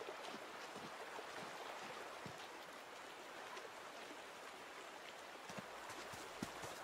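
Shallow river flowing: a faint, steady rush of water over gravel, with a few soft ticks.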